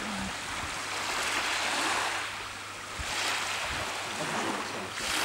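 Small waves washing onto the beach, a hiss that swells and fades, twice.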